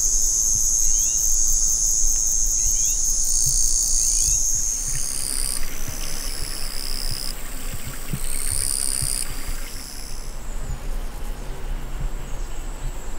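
Crickets and other insects trilling steadily at a high pitch. The chorus changes abruptly several times as the shots change, and a low rumble runs underneath.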